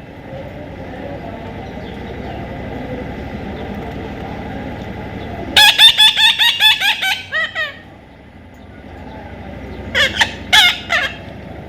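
A parrot gives a rapid run of about ten harsh, squawking calls about halfway through, then three more calls near the end, over a steady low background rumble.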